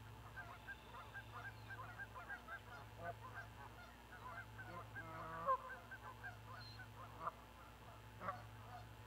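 Geese flying past and honking: a run of short, quick honks throughout, loudest about five and a half seconds in.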